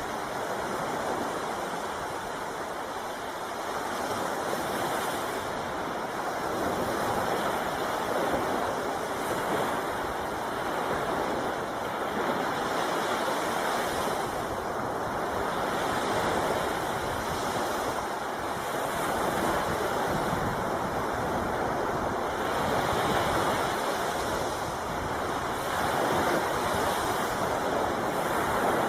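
Sea surf washing onto a beach: a steady rushing noise that swells as a wave breaks every three to four seconds.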